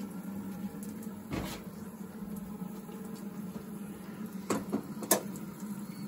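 A low, steady hum with a few sharp knocks and clicks as a drain hose and a plastic bucket are handled.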